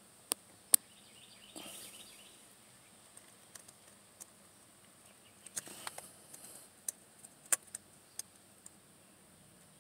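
Scattered sharp plastic clicks and light rustling as the yellow airbag connector plugs are handled and pushed into their sockets on the back of a steering-wheel airbag module.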